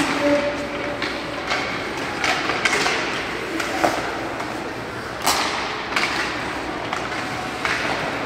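Youth ice hockey play echoing in a rink: sharp knocks of sticks, puck and boards come every second or two, the loudest about five seconds in, over a steady background of arena noise.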